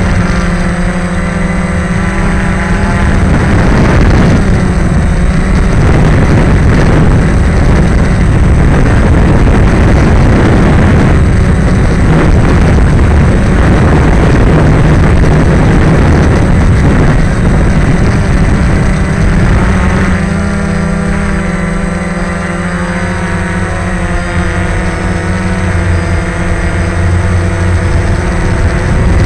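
DJI Phantom quadcopter's four motors and propellers buzzing loudly, heard from a camera mounted on the drone itself, with propeller wash rushing over the microphone. The buzz wavers and shifts in pitch about two-thirds of the way through as the drone changes speed.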